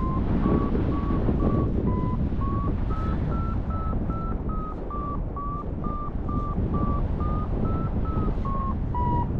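Paragliding variometer beeping about twice a second, its pitch rising and falling a little: the climb tone that signals the glider is in rising air. Wind rushes on the microphone underneath.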